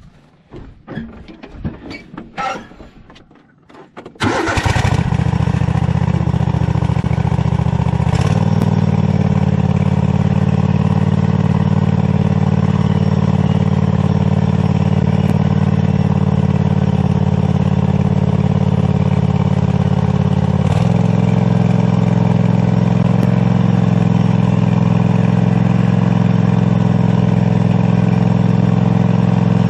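A few clicks and knocks, then a four-wheeler's engine starts about four seconds in and runs steadily. Its note shifts twice as it goes on.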